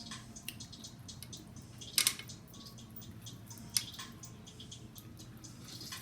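Snow crab leg shells being cracked and snapped apart by hand, with a sharp double crack about two seconds in and another near four seconds, among many small clicks of shell being picked, over a faint steady low hum.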